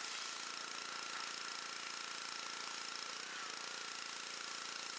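Gas-engine pressure washer running at a steady speed, with the hiss of its high-pressure water spray as the wand blasts grease off a Jeep engine bay.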